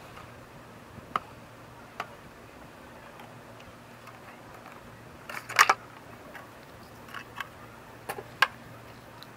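Clear plastic packaging of a boxed toy micro submarine clicking and snapping as it is handled and opened: scattered sharp clicks, with a louder cluster about five and a half seconds in and a few more near the end.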